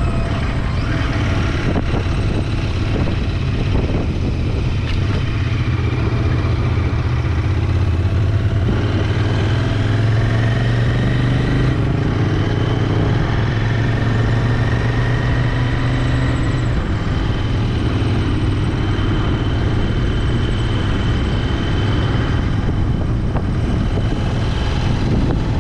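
Royal Enfield Interceptor 650's parallel-twin engine running while the bike is ridden, a steady low exhaust note that grows stronger about a quarter of the way in and eases a little about two-thirds through.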